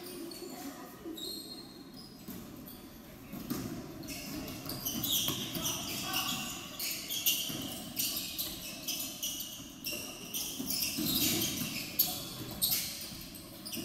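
Basketball being dribbled on a hardwood gym floor during a game, a run of sharp bounces, with players' and spectators' voices in the hall.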